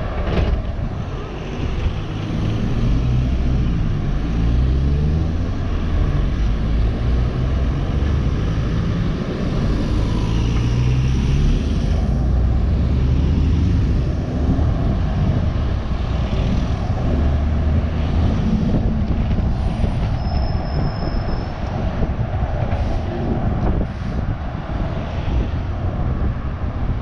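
Scania city bus engine running as the bus drives along, its note climbing twice in the first dozen seconds as it accelerates, then steadier, with tyre and wind noise on a microphone mounted outside the bus.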